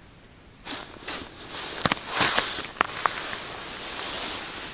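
Rustling and crackling of winter clothing and gear being handled, with a few sharp clicks, starting under a second in.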